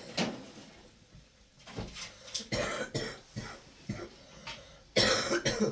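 Several short, harsh coughs, the loudest and longest about five seconds in.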